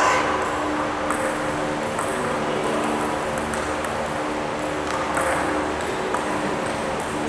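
Steady hum of a large hall's fans, carrying a few constant low tones, broken by a few sharp clicks of a table tennis ball: one about a second in and two more around five and six seconds.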